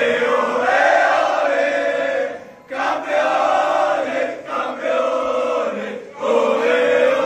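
A group of men chanting together in unison, a victory chant sung in phrases of about two seconds with short breaks between them.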